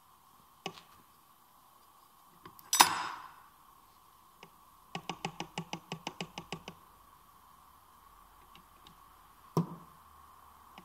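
Metal knocks and clanks on an opened manual gearbox's shafts and casing. One loud clank that rings on briefly comes about three seconds in. It is followed by a quick run of about a dozen taps, roughly seven a second, and a single knock near the end.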